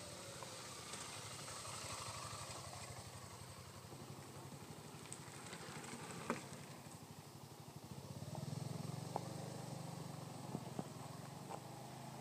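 A motorcycle passes at low level and fades away. Later a low engine hum swells and fades over a couple of seconds, with a few faint clicks.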